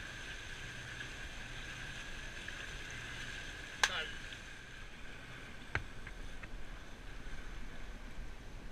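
Steady wind and water noise on a sailboat under way, with a thin steady whistle in it. There is a sharp knock about four seconds in and a fainter one near six seconds.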